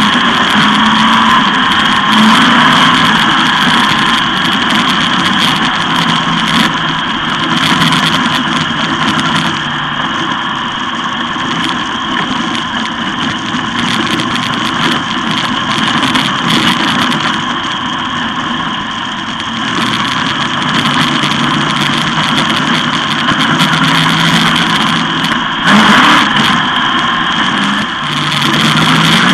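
360 sprint cars' V8 engines racing around a dirt oval, heard from trackside as a steady, continuous engine noise that swells briefly near the end.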